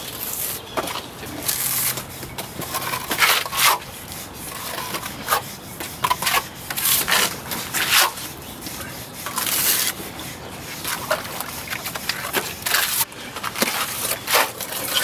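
Hand trowel scraping and spreading a trowel-on two-component waterproofing membrane across a concrete foundation wall, in a run of short, irregular strokes.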